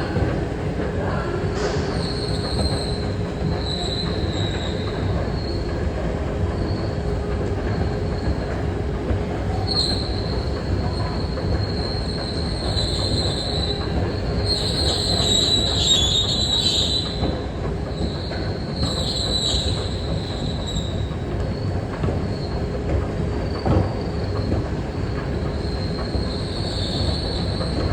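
Metro station escalator running with a loud, high-pitched squeal that comes and goes over a steady mechanical hum, loudest about halfway through.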